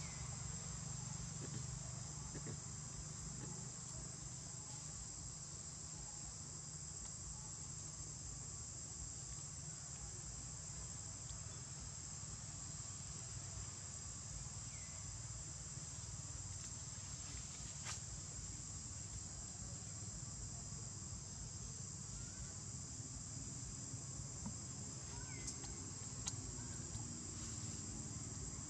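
A steady, high-pitched drone of insects over a low background rumble, with a few faint clicks.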